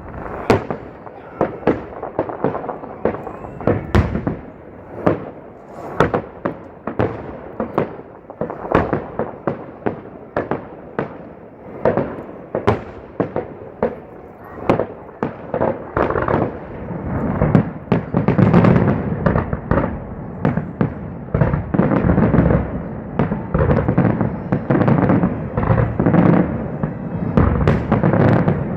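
Aerial fireworks going off in rapid succession, sharp bangs and booms one after another, thickening into a dense, near-continuous barrage of heavier booms about halfway through.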